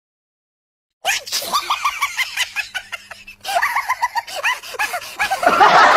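A second of silence, then rapid high-pitched giggling laughter, many short laughs a second, swelling into loud, dense laughing near the end.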